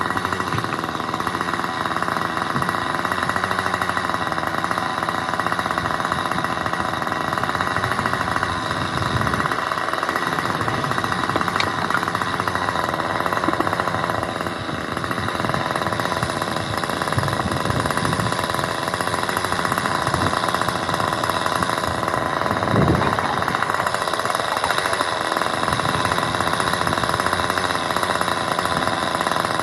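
Loud, steady running of construction machinery with a rapid hammering beat, heard throughout, with a few dull knocks at times.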